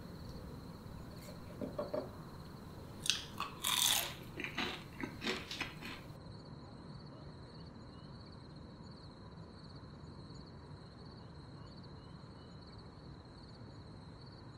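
Crisp, flaky baked puff pastry cheese twist crunching: a handful of sharp crackles over about four seconds, then only a faint steady hiss from about six seconds in.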